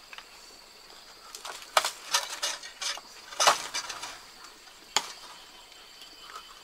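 A string of sharp clicks and snips as bottle gourds are cut from the vine, over a steady high insect trill.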